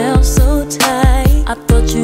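An R&B song playing, with a steady low kick-drum beat under a held bass note and a wavering melody line, and no words sung in this stretch.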